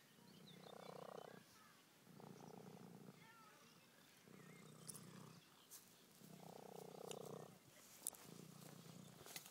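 Ginger tabby cat purring while being stroked, the purr coming in even pulses about every second and a half. A few soft clicks near the end.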